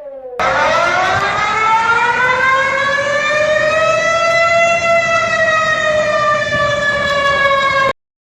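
Warning siren wailing. A falling tone is cut short right at the start, then a loud siren starts about half a second in over a rough hiss. It rises slowly in pitch for several seconds, eases back down, and cuts off suddenly near the end.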